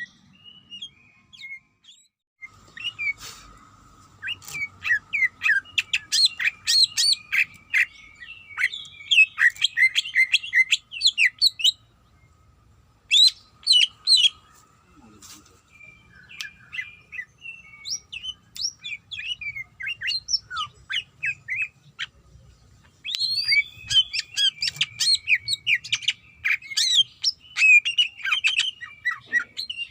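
Cucak ijo (green leafbird) singing a fast, varied chattering song of quick chirps and whistles in several bouts, as a challenge call to a rival bird. A faint steady high hum sits beneath the song for most of the time.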